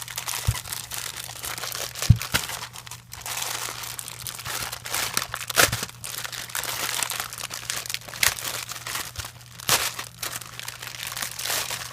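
A shipping package being torn open by hand: continuous crinkling and crumpling of the packaging, with a few sharp louder snaps as it rips.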